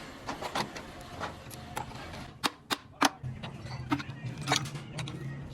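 Irregular sharp clicks and knocks of metal tools and parts being handled, with a low steady hum coming in after about three seconds.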